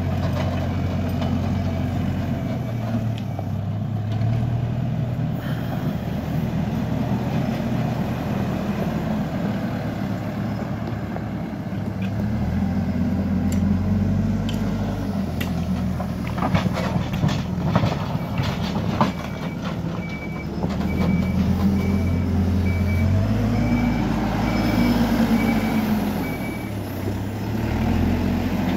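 Hidromek backhoe loader's diesel engine running, its pitch rising and falling as the machine moves, with a cluster of sharp clanks around the middle. Near the end a high reversing alarm beeps about twice a second for several seconds.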